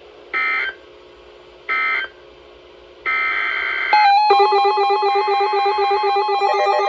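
Emergency Alert System SAME data bursts: short, loud, buzzy digital chirps about a second and a half apart, the brief kind that marks the end of an alert message. About three seconds in comes a longer burst. About four seconds in, electronic alert tones like synthesizer music start up, announcing the next warning.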